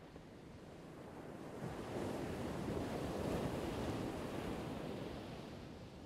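Ocean surf: a single wave rushing in, swelling over the first couple of seconds, peaking midway and slowly ebbing away.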